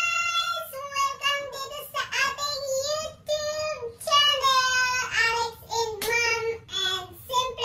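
A high-pitched voice singing a melody in long held notes that bend and waver, with short breaks between phrases.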